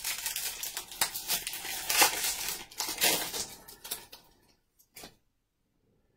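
A baseball card pack's wrapper crinkling and being torn open, a dense crackle that stops about four seconds in, followed by a single light click.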